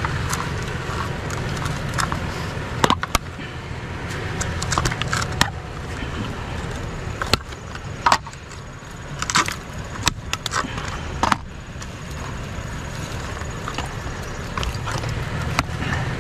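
Scrap being handled by hand: irregular knocks, clunks and clatter of items being moved and sorted, over the steady low hum of an idling vehicle engine.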